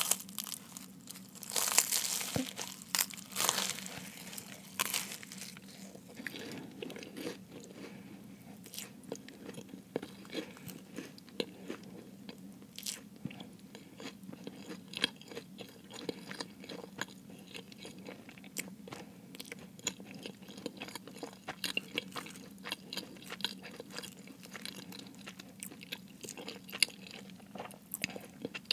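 Close-miked bite into a flaky baked Jamaican beef patty, the pastry crust crunching loudly for a few seconds about two seconds in. Then steady chewing with many small crackles of flaky pastry.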